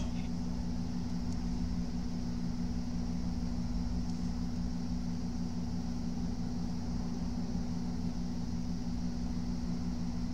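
Steady low machine hum with a soft hiss, holding unchanged throughout.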